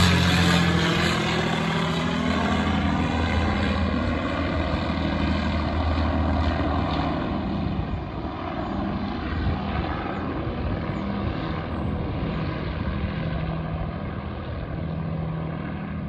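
Avro Lancaster's four Rolls-Royce Merlin V12 engines droning in flight, fading gradually as the bomber flies away into the distance.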